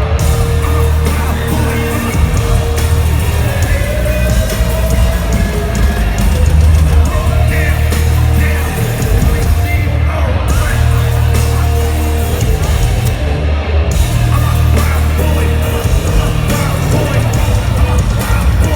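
Loud live concert music over a big PA system, with a heavy, steady bass; the highs briefly drop out a few times.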